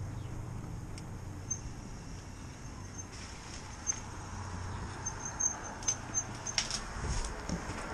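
Electric bike rolling over sidewalk concrete and slowing to a stop: a low tyre rumble with short high-pitched brake squeaks, coming faster in the second half, and a few sharp clicks near the end.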